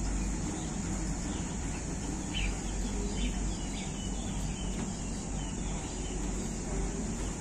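Outdoor background: a steady low rumble with a constant high hiss, and a few short bird chirps.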